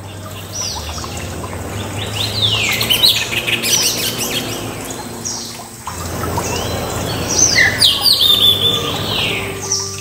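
Kingfisher chicks calling at the nest as food is brought: quick series of shrill, downward-sweeping chirps, busiest about two to four seconds in and again around seven to nine seconds in, over a steady hiss.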